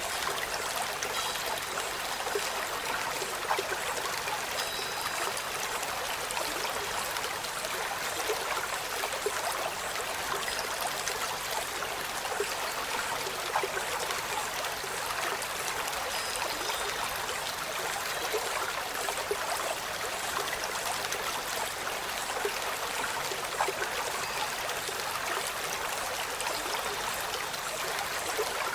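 Steady rush like running water, even throughout, with a few faint short high notes now and then.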